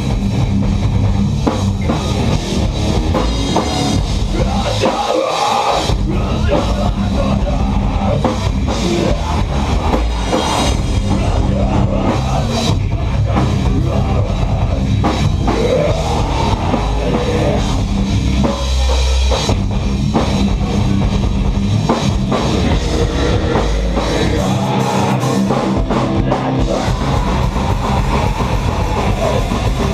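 Live rock band playing loud, driving music, the drum kit with cymbals and bass drum to the fore, with short breaks in the low end about five seconds in and again near the end.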